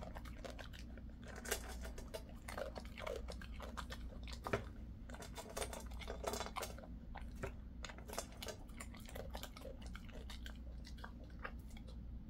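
Jindo-mix dog chewing, a busy run of irregular crunches and clicks, over a steady low hum.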